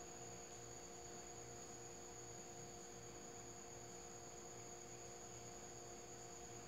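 Near silence: a steady low background hum with a faint high whine, unchanging throughout.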